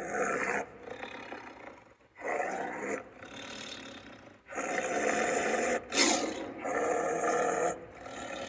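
Sumatran tiger roaring and growling: a series of four or five rough calls, each about a second long, with quieter breathy growls between them and a sharp, loudest burst about six seconds in.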